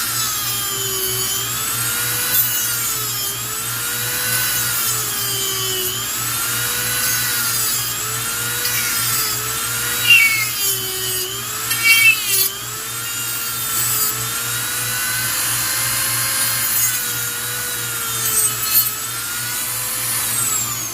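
A small high-speed rotary tool cutting into the plastic case of a car's turn signal relay. Its motor pitch sags and recovers over and over, about every second and a half, as it is pushed into the cut, with a few louder rasping bursts about ten and twelve seconds in.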